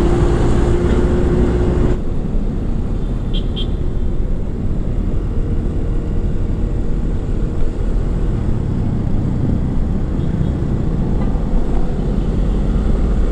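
Onboard motorcycle riding noise through a generic clip-on mic: steady low rumble of wind and engine while riding in traffic. A steady tone stops about two seconds in, and two short high chirps follow soon after.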